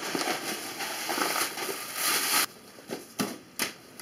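A cardboard shipping box being rummaged through and shaken, its contents and packing rustling and crinkling for about two and a half seconds, then two short knocks near the end.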